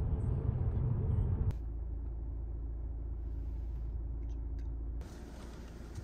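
Car road noise: a steady low rumble from a car driving on a multi-lane road. It cuts off abruptly about a second and a half in to a quieter steady low hum. Near the end that gives way to a quieter, hissier outdoor ambience.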